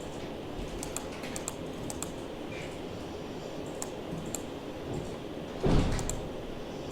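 Computer keyboard typing and mouse clicks, scattered sharp clicks over a steady low hum, with one louder brief noise about three-quarters of the way through.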